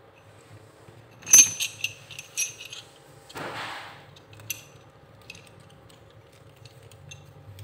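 Metal tool bits clinking and jangling together as they are handled, in a quick cluster about a second in, followed by a short rustle and a few lighter clicks.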